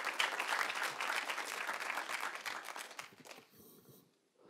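Audience applause, many hands clapping, dying away about three seconds in.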